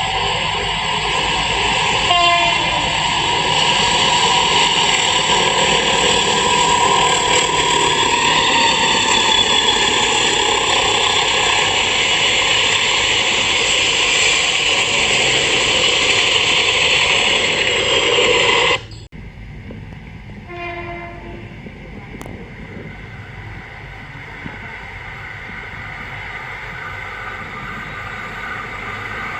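Indonesian CC 201 diesel-electric locomotive with its train going by, the air horn sounding at length over the running noise. The loud horn passage cuts off abruptly about two-thirds of the way through, leaving quieter train noise that grows louder near the end.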